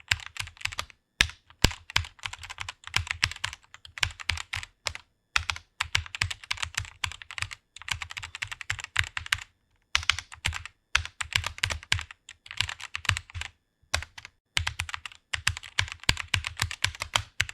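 Fast typing on a computer keyboard: quick runs of keystrokes broken by short pauses.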